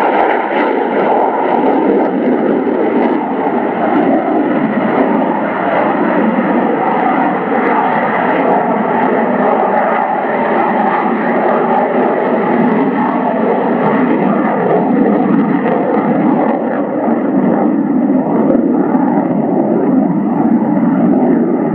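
Belgian Air Force F-16's single Pratt & Whitney F100 turbofan jet engine, loud and steady as the fighter climbs and banks through its display.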